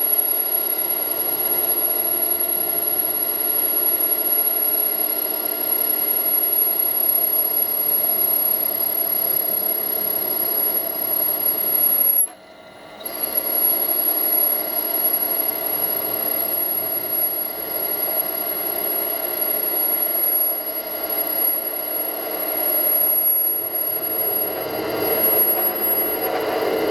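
Power tool working the aluminium canister: a steady, high-pitched whine that cuts out briefly about halfway and then picks up again.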